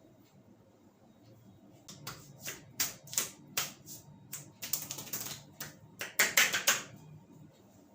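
An irregular run of sharp slaps and snaps from a barber's hands working a customer's head during an Indian head massage. It starts about two seconds in and gathers into two quick flurries, one in the middle and one near the end.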